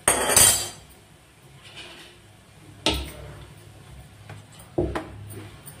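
A loud, brief hiss at the start, then a couple of sharp knocks and lighter taps of a wooden rolling pin on the counter as bhatura dough is rolled out, beside a bhatura frying in a small kadai of hot oil.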